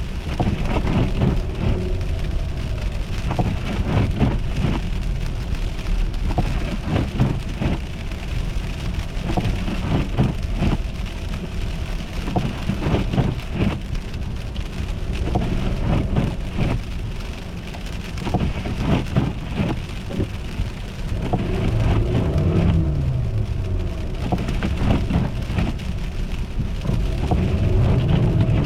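Car driving on an icy, slushy road: a steady low rumble with many short, sharp crackles throughout. Near the end the engine pitch rises and falls twice.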